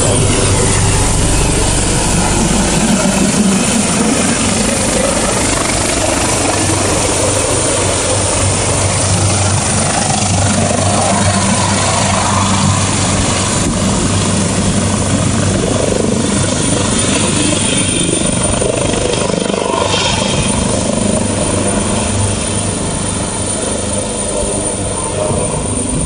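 Medevac helicopter's rotors and turbine engines running, a loud steady thrum with a low hum, easing off a little near the end.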